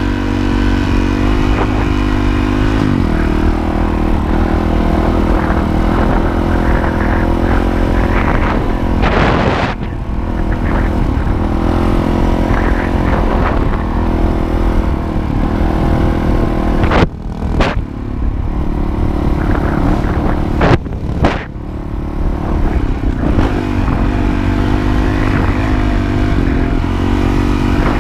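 Honda CRF450RL dirt bike's single-cylinder four-stroke engine running under way on a trail ride, its pitch rising and falling with the throttle. A few brief drops in level come past the middle.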